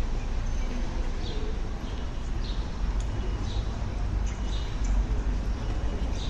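Street ambience: small birds chirping in short, repeated calls over a steady low rumble and a general murmur of the town.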